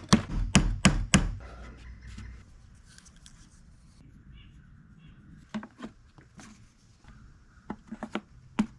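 A quick series of four sharp knocks in the first second or so, then light scattered taps and clicks of hands handling food-prep gear.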